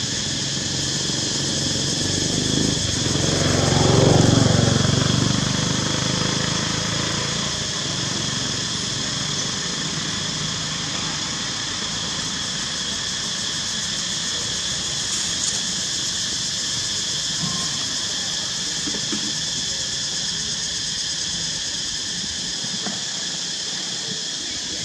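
A motor vehicle passing, its engine noise swelling to a peak about four seconds in and fading by about six seconds, over a steady high-pitched drone of forest insects.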